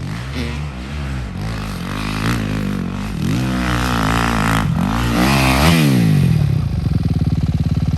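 Dirt bike engines revving up and down repeatedly, at times more than one at once. From about six and a half seconds one bike runs close by at a steady, evenly pulsing speed.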